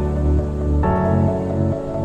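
Background music: a slow, soft new-age style track with sustained chords changing about every second.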